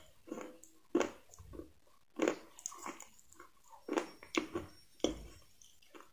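Close-miked mouth chewing crispy fried chicken: irregular short, sharp crunches and mouth clicks, about one or two a second.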